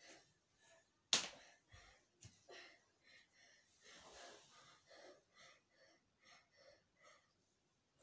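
A person's quick, breathy gasps and wheezes, about three a second, with a sharp knock about a second in.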